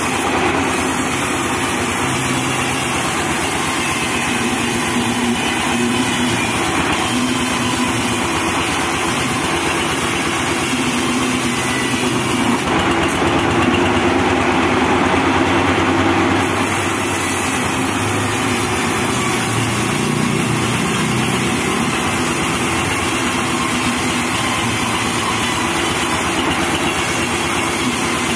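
Homemade band sawmill running steadily as its blade rips lengthwise through a teak log, with engine-driven pulleys and belts turning. The highest hiss grows stronger for a few seconds about midway.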